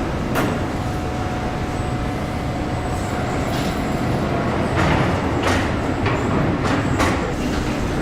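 Car assembly plant machinery: a steady industrial din with several sharp clanks and short hisses, and a steady whine during the first half.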